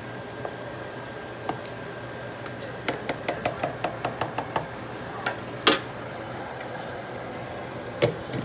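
Kitchen utensils clinking and knocking against cookware: a quick run of light clicks about three seconds in, then a few louder single knocks.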